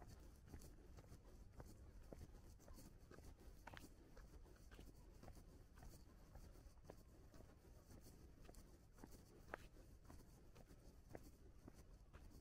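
Near silence, with faint, irregular footsteps and small clicks over a low rumble.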